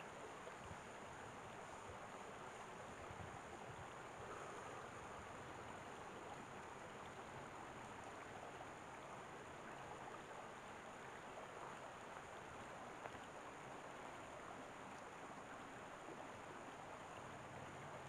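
Shallow rocky stream flowing over stones: a faint, steady rush of water.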